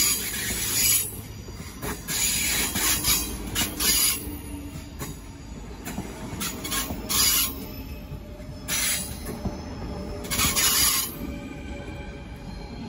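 SBB double-deck electric train rolling slowly through a station, its wheels screeching against the rails in repeated bursts over a low running rumble.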